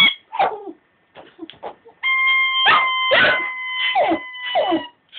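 Dog howling and whining in a series of short cries that rise and fall in pitch. A steady high held tone runs under the cries from about two seconds in.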